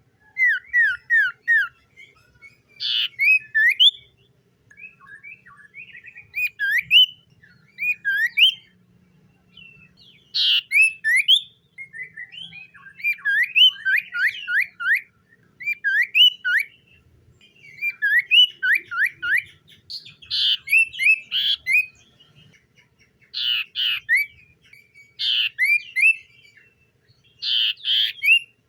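Common iora singing: short bursts of quick whistled notes, repeated every second or two with brief pauses between, some bursts ending in sharper, harsher notes.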